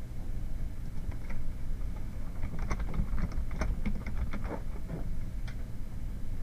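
Computer keyboard typing: a quick run of about a dozen keystrokes, most of them between two and five seconds in, over a steady low rumble.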